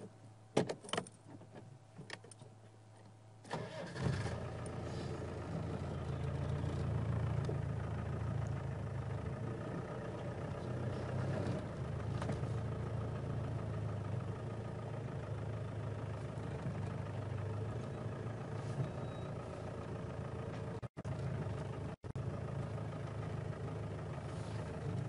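A few clicks, then a safari game-drive vehicle's engine starts about three and a half seconds in and runs steadily with a low hum as the vehicle moves off.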